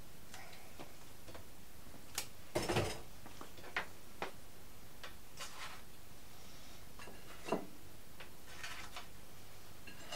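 Kitchen handling sounds as a toasted grilled cheese sandwich is moved about on a chopping board and plate. Scattered light knocks, taps and scrapes, the loudest a short clatter about two and a half seconds in.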